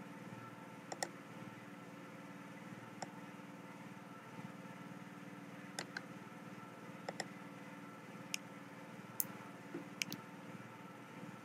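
Sparse computer keyboard keystrokes and mouse clicks, about ten short clicks spread unevenly over the stretch, over a steady low hum.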